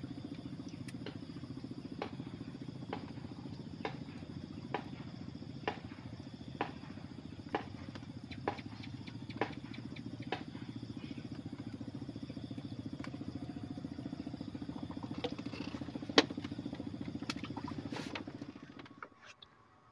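A small engine running steadily, with sharp clicks about once a second; the sound cuts off abruptly near the end.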